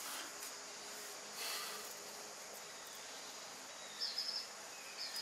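An insect chirping in short, rapid trills at a steady high pitch, twice near the end, over a faint steady background hiss. There is a brief soft rustle about one and a half seconds in.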